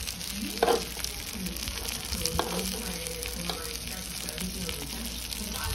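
Battered jeon sizzling in oil on a griddle pan, with a utensil tapping and scraping against the pan: a sharp tap about half a second in and a couple of lighter ones later.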